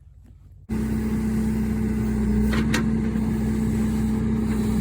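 Backhoe engine running steadily, cutting in abruptly less than a second in.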